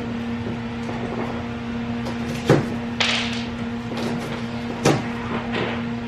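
Handling noises: two sharp knocks and a short rustling hiss, over a steady low hum.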